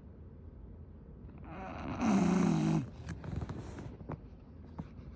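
English bulldog snoring while asleep: one loud, rasping snore lasting about a second, about two seconds in, then quieter breathing with a few faint clicks.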